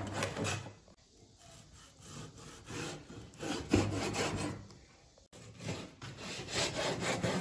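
Chinese cleaver slicing a raw fish fillet on a wooden chopping board: repeated drawing strokes of the blade through the flesh and scraping on the wood, with a sharp knock of the blade on the board about five seconds in.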